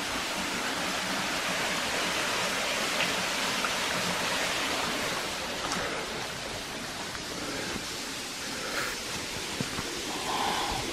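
Small stream flowing steadily below a footpath, a continuous rushing hiss that eases a little about halfway through.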